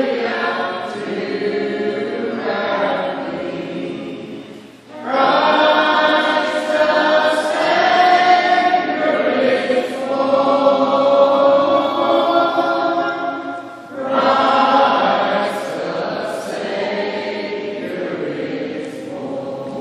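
A mixed choir of men's and women's voices singing together, with short breaks between phrases about five and fourteen seconds in.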